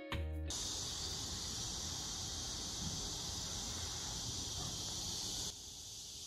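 Insects shrilling in a steady, high-pitched chorus over a faint low rumble. It dips slightly in level about five and a half seconds in.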